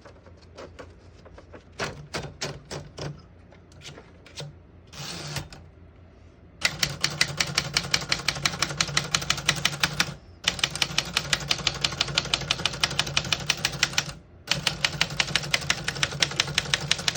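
Smith-Corona Cougar manual portable typewriter: a few scattered clicks and a short rasp, then from about six and a half seconds in, rapid continuous typing in three long runs with brief pauses between them.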